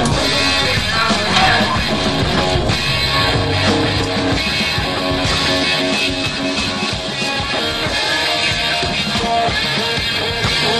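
Rock music with electric guitar and a dense, steady mix.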